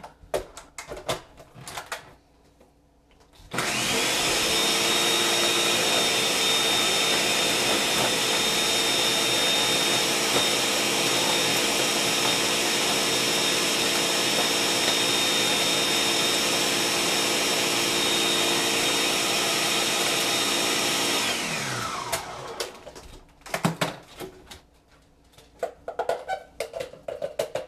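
Electric blender running steadily, mixing ice cream and milk into a milkshake. It starts about three and a half seconds in with a steady motor whine and is switched off after about eighteen seconds, its pitch falling as it winds down. A few knocks and clinks come before it starts and after it stops.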